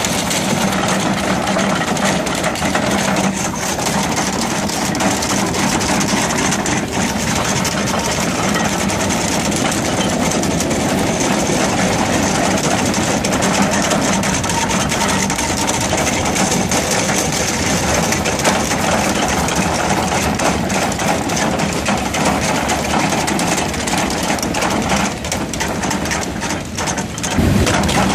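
Antraquip AQ3XL hydraulic rotary drum cutter grinding rock: a dense, continuous crackle of its steel picks chewing stone, over the steady drone of the carrier excavator's diesel engine and hydraulics. The level dips briefly near the end, then comes back.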